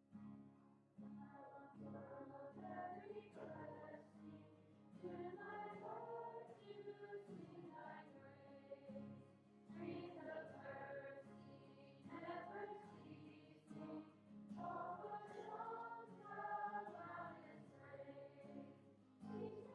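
Voices singing a worship song together over steady instrumental accompaniment, faint and thinly recorded.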